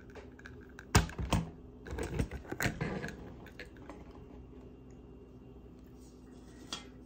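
Clicks and knocks of small items being handled and set down on a hard surface: a loud knock about a second in, a cluster of clicks between two and three seconds in, then one more near the end, over a low steady hum.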